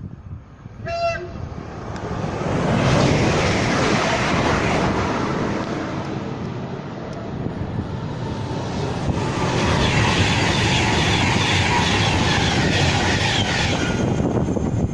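A train gives one short horn blast about a second in, then passes close by, its rumble and wheel noise building and holding loud, with a high ringing note from about ten seconds in that stops near the end.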